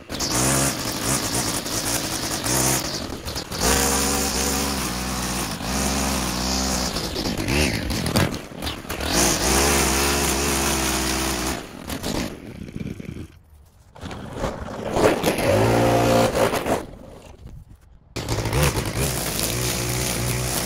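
Small gas engines of lawn equipment running and changing speed, in several short segments with abrupt cuts between them.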